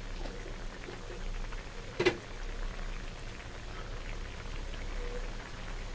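Coconut-milk chicken curry simmering in a wok, a steady soft bubbling and popping, with a single sharp knock about two seconds in.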